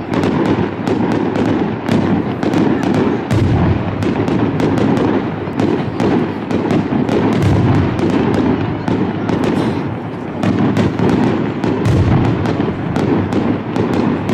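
Aerial fireworks display: a rapid, unbroken string of bangs and crackles from shells bursting overhead, with many reports overlapping into a continuous rumble.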